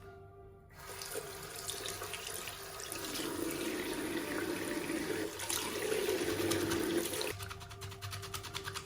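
Tap water running into a sink as makeup brushes are rinsed, the flow growing heavier about three seconds in and cutting off suddenly near the end.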